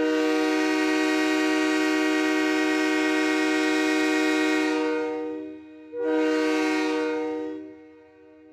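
Train air horn sounding several notes together: one long blast of about five and a half seconds, then a short break and a second, shorter blast of about two seconds.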